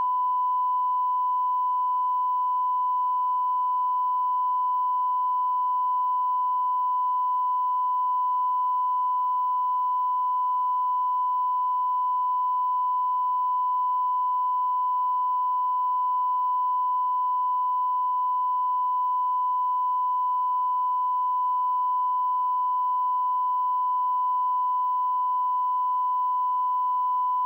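Steady 1 kHz line-up tone played with colour bars at the head of a studio videotape, the reference used to set audio levels. It holds one unwavering pitch and cuts off abruptly at the very end.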